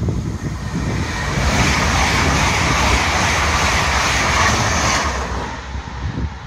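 PKP Intercity electric multiple unit passing close by at speed: the rush of its wheels on the rails swells over the first second or two, stays loud for a few seconds, then cuts off abruptly about five seconds in.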